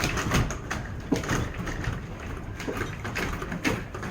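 Strong blizzard wind rushing, with irregular knocks and rattles.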